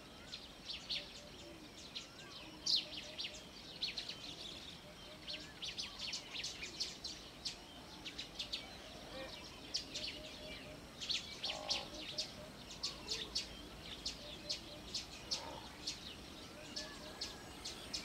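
Small birds chirping: many quick high chirps, several a second, with a softer repeated lower note now and then, over a steady outdoor hiss.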